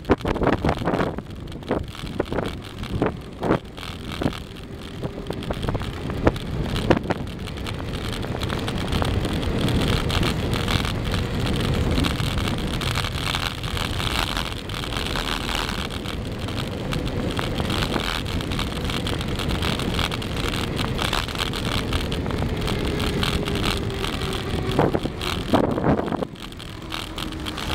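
Wind rushing over the microphone as a bicycle coasts fast downhill, building up after several seconds and holding steady. In the first few seconds there are scattered knocks and rattles from the bike and camera.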